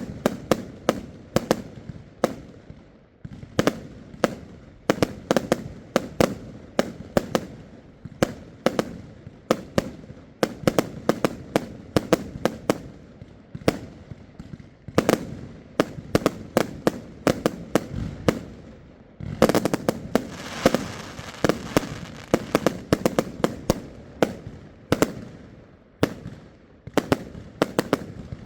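Fireworks going off in a fast, irregular run of sharp bangs, several a second, with a denser spell of crackling and bangs about two-thirds of the way through.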